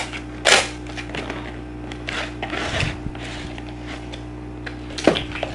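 Paper lid being torn back from a cardboard instant-noodle bowl and the packets inside rustling, with a sharp tap near the end, over a steady low hum.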